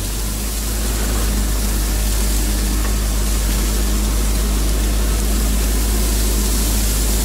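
ATV engine running steadily at low speed as the quad pushes through dense dry reeds, a low drone with a steady hiss over it.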